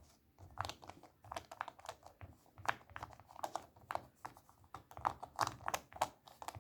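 A cloth rag rubbed over a remote control's button keypad in short, irregular scrubbing strokes, about two to three a second, with soft scuffing and rustling.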